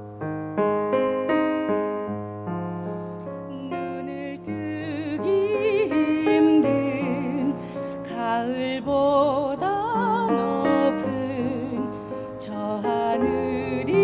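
Piano music; about four and a half seconds in, a solo singer with strong vibrato comes in over the piano accompaniment.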